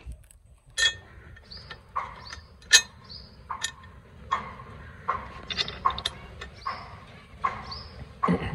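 Small metal bolts and nuts clicking and rattling in a plastic hardware packet as they are picked out, with knocks from the rack being handled. Irregular sharp clicks come about one or two a second, the loudest a little under three seconds in.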